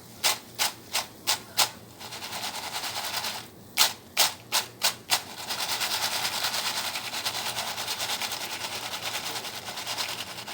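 Starch-coated potato fries deep-frying in hot oil, sizzling and crackling densely. Two runs of sharp clicks come first: five in the opening two seconds and four more about four seconds in.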